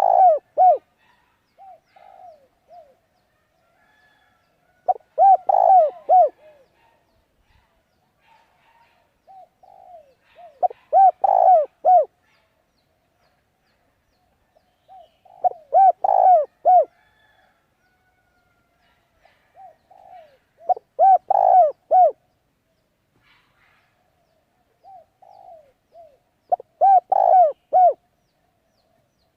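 A bird calling in repeated phrases, about one every five and a half seconds. Each phrase is a quick run of several short notes on much the same pitch, led in by softer notes.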